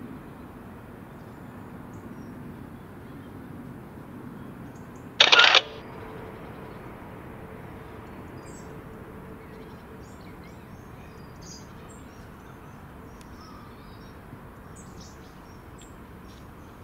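Steady outdoor background noise with faint, high bird chirps scattered through the second half. About five seconds in, one loud, harsh burst lasting under half a second stands out above everything else.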